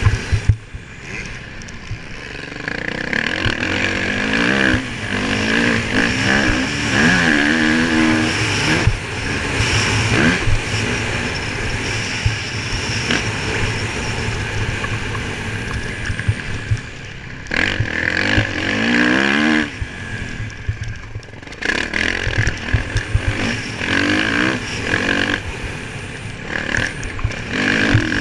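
Motocross dirt bike engine revving hard under the rider, its pitch climbing and falling again and again through the gears, with a few short dips where the throttle is shut off before corners.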